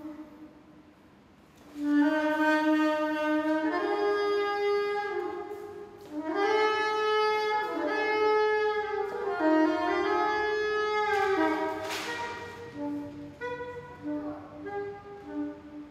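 Solo saxophone playing slow, held notes that step up and down between a few pitches. The phrase begins about two seconds in after a brief pause, and the notes grow shorter near the end.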